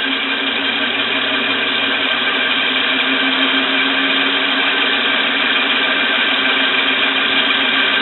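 Homemade compressed-air engine running steadily on shop air, an even mechanical running sound with no breaks or changes in speed.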